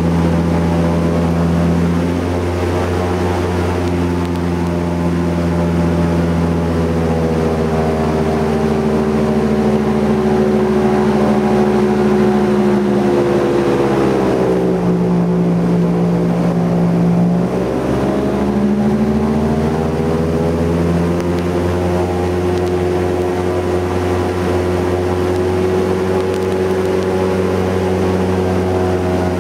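Boat engine running steadily under way. About halfway through its pitch drops as the throttle is eased for a few seconds, then rises back to its cruising note.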